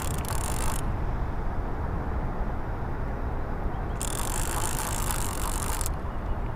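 Fishing reel whirring in two bursts, the first at the start and the second about four seconds in, each lasting a second or two, as a hooked catfish is reeled in, over a steady low rumble.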